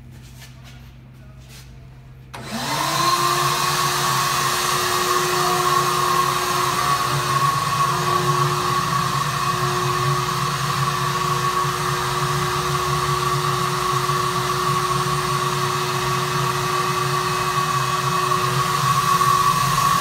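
Shop vac switched on about two seconds in, its whine rising quickly to a steady pitch, then running loudly. It is blowing air into the tailpipe to pressurise a cold exhaust so that soapy water bubbles at any leak.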